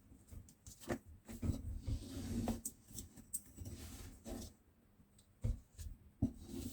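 Kinetic sand being worked: soft, irregular crunching and scraping, with a few sharper crackles about a second in and again near the end.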